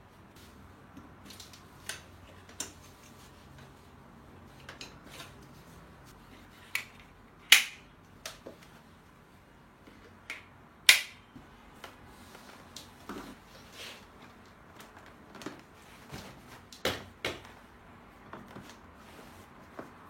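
Scattered clicks and snaps of baby-stroller parts being handled and fitted together during assembly, at uneven intervals, with two much louder sharp snaps a few seconds apart near the middle.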